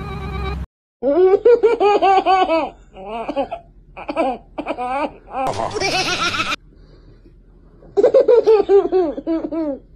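Baby laughing hard in repeated fits of pulsing giggles, with a short break about two-thirds of the way through before a final loud fit.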